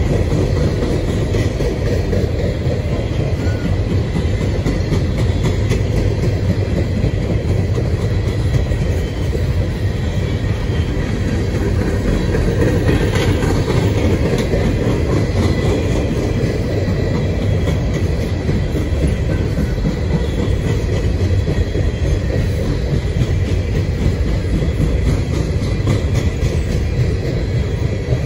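Freight train cars rolling past on the rails: a steady, loud rumble, with wheels ticking over the rail joints.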